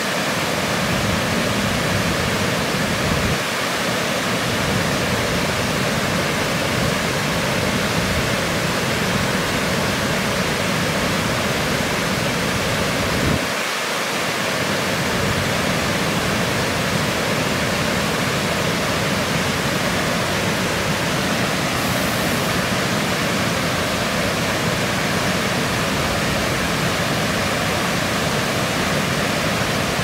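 Water pouring over a low concrete weir, a steady rushing noise.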